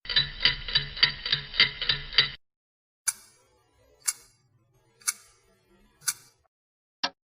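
Mechanical clicking for about two seconds stops abruptly. After a short gap a clock ticks once a second, four times, over a faint low hum. A different sharp tick comes near the end.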